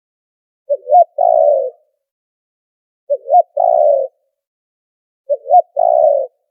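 Spotted dove cooing: three calls about two and a half seconds apart, each a quick two-note lead-in followed by a longer, burry coo.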